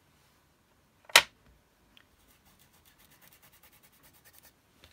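A single sharp knock about a second in, then faint, quick scratchy rubbing strokes, several a second, as a fingertip works wax through a paper stencil onto board.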